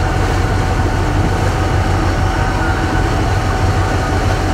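Fishing boat's engine running steadily: a loud, even low rumble with a constant droning tone.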